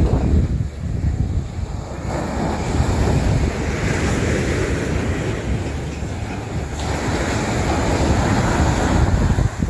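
Ocean surf breaking and washing up the beach, with wind buffeting the microphone in a low rumble. A wave's wash swells about two seconds in and eases off near seven seconds.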